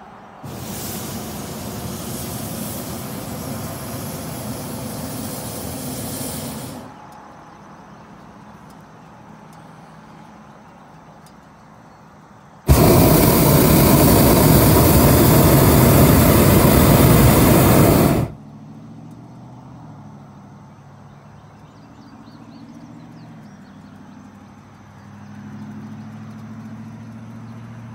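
Hot air balloon propane burner firing in two long blasts of about six seconds each, starting and stopping abruptly; the second blast is much louder than the first.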